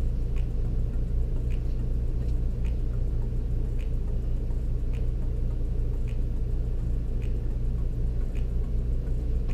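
Steady low machine rumble with several fixed low pitches, and a faint short click about once a second.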